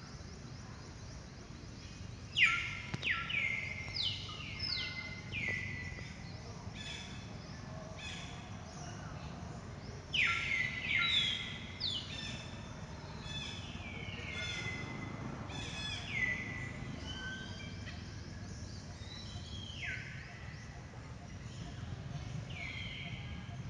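Bunches of short, high-pitched animal calls, each falling in pitch, repeated several times over a steady low hum of outdoor ambience.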